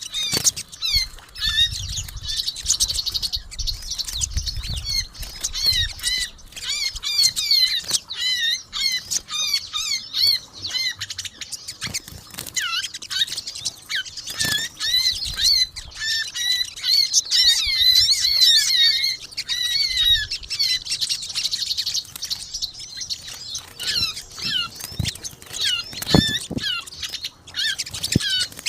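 Sunbirds (sogon) and white-eyes (pleci) chattering noisily together: rapid, overlapping high twittering and chirping calls. Soft low thumps and a sharp click break in now and then.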